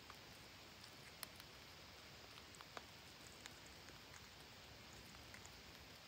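Near silence: a faint steady hiss with scattered soft clicks, two of them a little louder, about a second in and near the middle.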